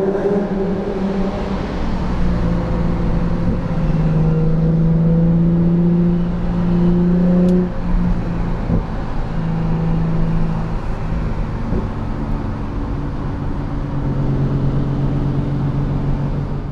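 Nissan 350Z's V6 engine heard from inside the cabin while driving, with road and tyre noise underneath. The engine note climbs at the start, holds steady, dips about seven and a half seconds in, then settles and rises again near the end.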